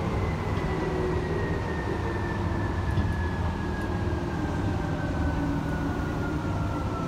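Tokyu 8500 series electric train heard from inside the passenger car. Its traction motor whine falls slowly and steadily in pitch as the train slows, over a continuous low rumble of wheels on rail.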